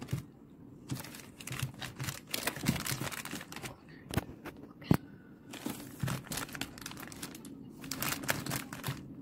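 Clear plastic mooncake wrappers crinkling in bursts as the wrapped mooncakes in their plastic trays are handled and set down on a wooden table, with one sharp tap about five seconds in.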